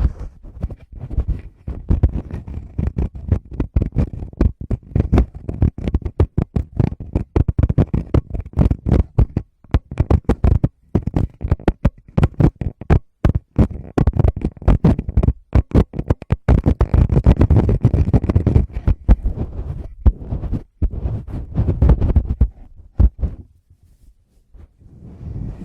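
Fingertips tapping and rubbing directly on a Tascam microphone: a fast, uneven run of deep taps and thumps with stretches of continuous rubbing between them. It thins out and grows quieter near the end.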